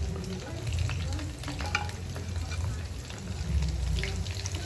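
Garlic and hard vegetables (carrot, capsicum, onion) frying in hot oil in a pan while being stirred, with scattered clicks of the utensil against the pan.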